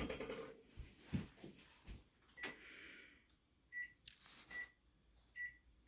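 Faint knocks and clicks, then an oven's control-panel keypad beeping four times in short single beeps as its buttons are pressed to set it for baking.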